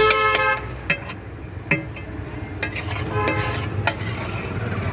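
Metal spatula scraping and clinking on a flat iron griddle (tawa) as an aloo tikki chaat mixture is mashed and stirred, with sharp taps about once a second. A short ringing tone sounds at the very start and again a little past three seconds.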